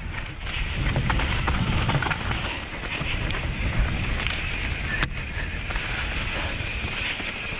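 Mountain bike riding fast down a dirt forest singletrack: tyres rolling over the trail and the bike clattering, with wind rushing over the action camera's microphone. One sharp knock about five seconds in.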